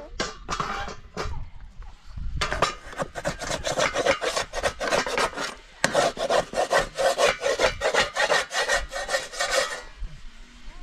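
Rapid, even scraping or rubbing strokes, about five a second, that break off briefly about six seconds in and then go on until near the end.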